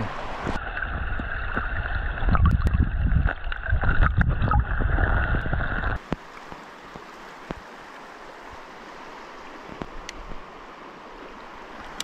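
Muffled underwater rumbling and sloshing with scattered knocks, heard through a camera held under the river's surface; it stops abruptly about halfway through. A steady, quieter rush of flowing river water follows, with a few light clicks.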